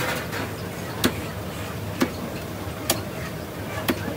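Heavy meat cleaver chopping chicken on a wooden chopping block: four sharp chops, about one a second.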